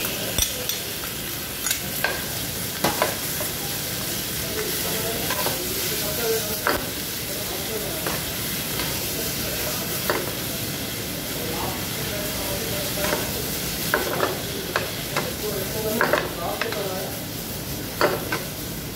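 Chopped onion, spring onion and tomato sizzling steadily in a hot frying pan, stirred with a metal ladle that scrapes and clacks against the pan in short strokes, with a quick run of them near the end.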